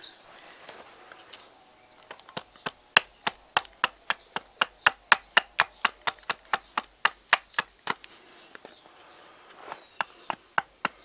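Axe chopping seasoned alder on a chopping block: a quick run of light, sharp strokes about four a second, trimming the cheek off a spoon blank. The strokes stop for a second or two and then start again near the end.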